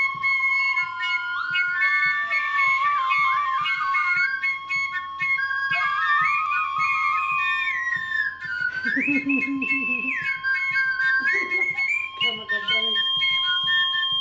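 Several wooden flutes played together in long, overlapping notes. One holds a steady low note while the others step and slide between higher pitches.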